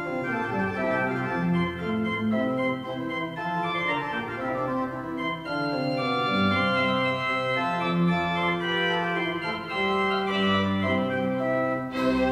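Instrumental background music of slow, sustained held chords, with a brighter passage coming in near the end.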